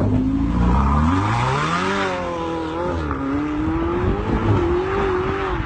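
Sports car engine revving hard as the car accelerates away, its pitch climbing for about two seconds, dipping briefly about three seconds in, then rising again.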